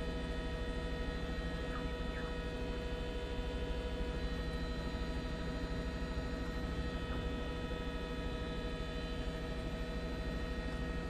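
Helicopter cabin noise picked up by an onboard microphone: a steady hum of several fixed pitches over a fast low throb.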